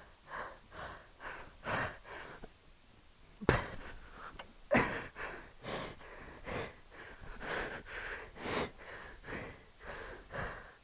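A rider's fast, heavy panting close to a helmet-mounted microphone, about two breaths a second. The breathing stops for about a second around two seconds in, and a sharp knock follows. He is worn out from a hard off-road climb.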